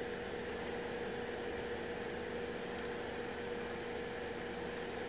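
A steady mechanical hum with one constant tone, unchanging in level, and a faint short high chirp about two seconds in.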